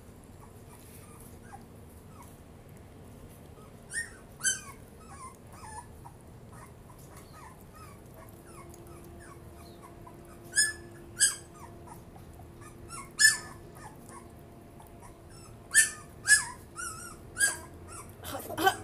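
A young puppy whimpering while being hand-fed milk from a syringe: about nine short, high-pitched cries, mostly in pairs and small clusters.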